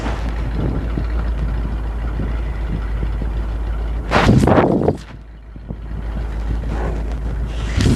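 The gasoline V8 of a 1975 Chevrolet C65 grain truck running as the truck drives slowly past. About four seconds in there is a loud rushing burst lasting about a second, then a brief dip before the truck sound builds again.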